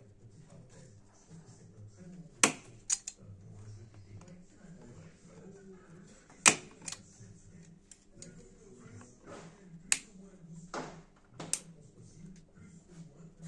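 Sharp plastic and metal clicks and snaps, six or so at uneven gaps, from a fuel-line quick-connector on a diesel fuel filter being worked by hand and tool. The fitting is stuck and will not release.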